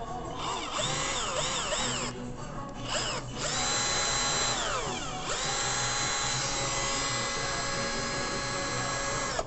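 Total 12-volt cordless drill's motor whirring as the trigger is worked. The first run wavers up and down in speed and stops about two seconds in, followed by a brief blip. A longer run then spins down with falling pitch about five seconds in, and the drill starts again and runs steadily until near the end.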